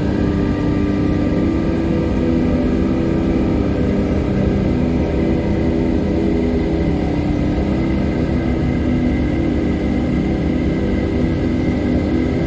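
Ambient music: slow, sustained drone chords held over a steady, dense noise bed, with no beat and no sudden events.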